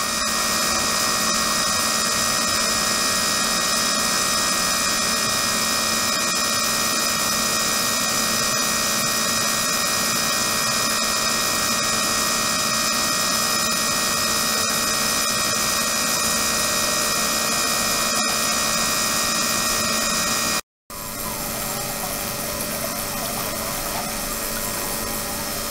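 A 72 kHz, 300 W ultrasonic bath runs in a plastic water tank, giving a loud, steady hiss with several high whining tones from the ultrasound in the water, along with a small circulating pump motor. About 21 s in, the sound cuts out for a moment and then resumes a little quieter, with less of the high whine.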